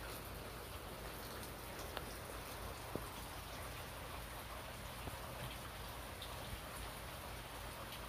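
Quiet room tone: a steady low hiss with a faint hum underneath, and a couple of faint ticks about two and three seconds in.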